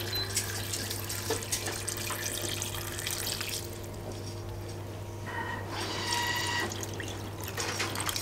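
Water poured from a jug into a pot of diced vegetables, splashing and trickling onto them, with a brief lull about four seconds in before the pour picks up again.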